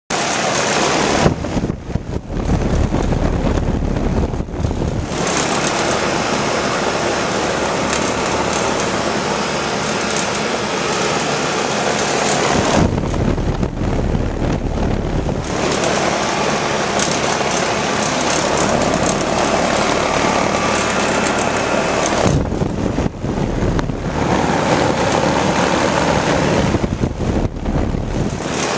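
Rheem Classic X air conditioner running, a continuous mechanical fan-and-motor noise that turns duller and brighter in tone several times.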